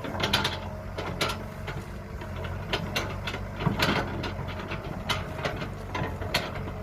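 Kobelco excavator's diesel engine running steadily, with irregular metallic clanks and knocks from the working machine as it digs with its big bucket.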